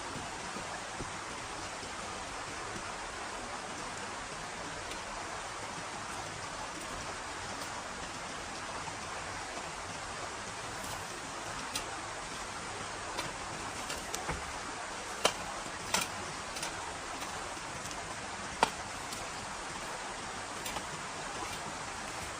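A steady, even rushing sound of outdoor forest ambience. From about halfway, a scattering of sharp clicks and snaps sits over it, the loudest coming near the end.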